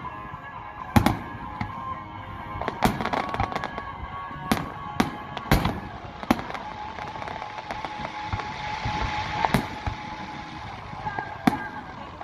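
Aerial firework shells bursting overhead: a string of sharp booms and crackles, the loudest about a second in, several in quick succession around three and five seconds in, and fewer, spaced out, near the end.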